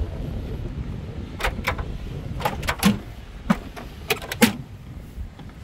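Tailgate of a 2019 GMC Sierra AT4 pickup being unlatched and lowered open: a run of sharp metallic clicks and clunks over about three seconds. Wind rumbles on the microphone throughout.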